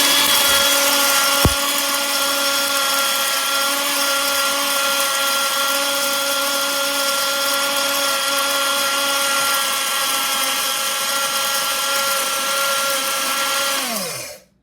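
High-speed electric grain mill running with wheat berries in its chamber: a loud, steady motor whine, with a single sharp click about a second and a half in. Near the end it is switched off and winds down, its pitch falling to silence.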